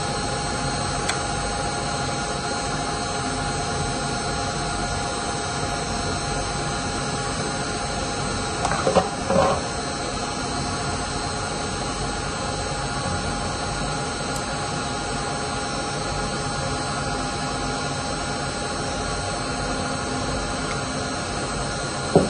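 Steady machinery drone with several fixed tones in it, unchanging throughout. A short, louder sound stands out about nine seconds in.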